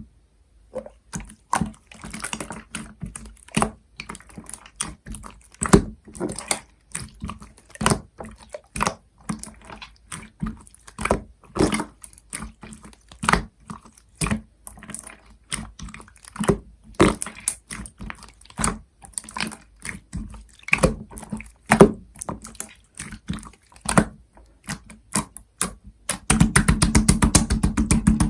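Slime being squished and poked by hand, making irregular sticky clicks and pops. Near the end comes a fast, dense run of crackling pops.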